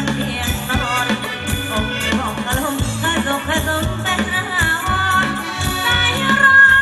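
Live band playing Thai ramwong dance music, with a steady beat and a melody line over it.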